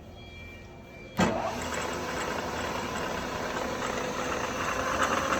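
Spindle of a Southwest Industries TRAK DPM bed mill switched on about a second in, then running steadily with a whine over a hum and slowly getting louder as it spins up toward about 1600 RPM. There is a little rattle from the Kurt power drawbar.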